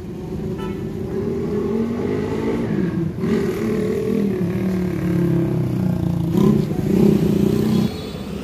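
Car engine running close by, its pitch shifting up and down and getting louder toward the end before easing off.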